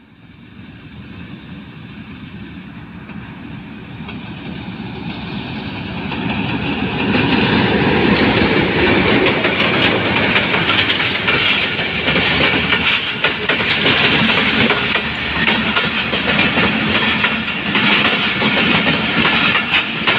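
Passenger train headed by a Pakistan Railways PHA-20 diesel locomotive, growing steadily louder for about seven seconds as it approaches and the locomotive passes. Then its passenger coaches roll past, the wheels clattering over the rail joints.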